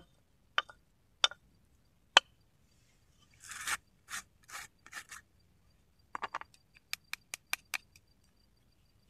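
Knife chopping green onions on a wooden cutting board: four sharp chops in the first couple of seconds. Then, from about three seconds in, a rough scraping and rubbing as the lid of a small metal tin is twisted open, followed near the end by a quick run of light clicks.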